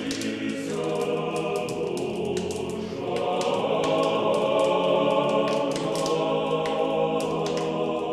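Closing music: a choir singing in long sustained chords, with many small irregular crackles over it.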